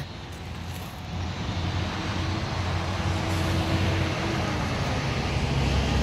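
Outdoor vehicle and traffic rumble that grows steadily louder, with a faint steady hum partway through.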